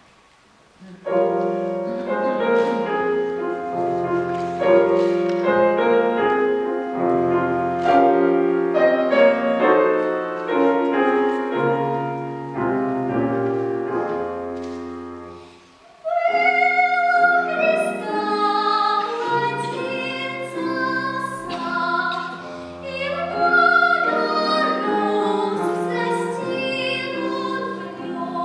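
Piano accompaniment plays an introduction, and about halfway through a young singer comes in with a classically trained voice and vibrato, the piano continuing beneath.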